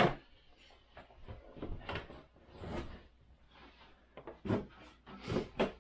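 Cardboard box and its packaging being handled while a Starlink satellite dish kit is unpacked: a series of short rustles and knocks, about a second apart, as the dish and stand are lifted out and set down.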